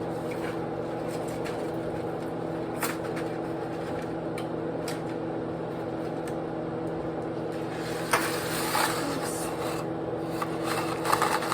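Steady hum with scattered clicks, then scraping and rubbing from about eight seconds in, as pasta is handled and stirred in a pot.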